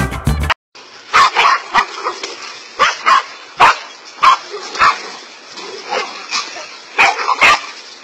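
Several dogs barking at a snake they are harassing: short, sharp barks, one after another, many times in a few seconds.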